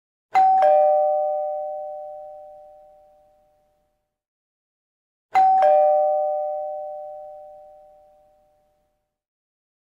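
Two-note ding-dong doorbell chime, a higher note then a lower one, sounding twice about five seconds apart and ringing out for about three seconds each time.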